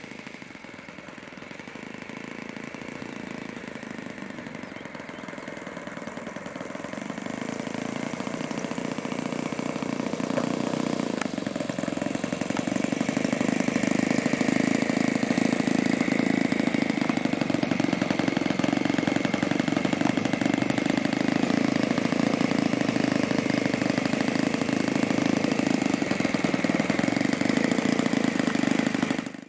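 Saito 80 four-stroke glow engine of an RC warbird model idling as the plane taxis. It grows louder over the first dozen or so seconds as the plane comes closer, then holds steady.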